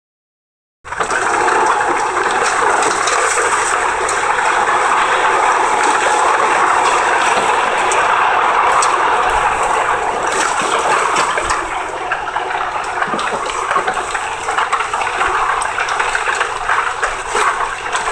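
Steady rushing noise with no distinct pitch, starting suddenly about a second in after a moment of silence and easing slightly in the second half.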